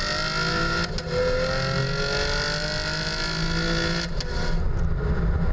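Car exhaust recorded beside the tailpipe under hard acceleration, the engine note climbing in pitch through the gears. Upshifts come about a second in and again about four seconds in, each marked by a short break and a sharp pop from the exhaust, with a heavy low rumble underneath.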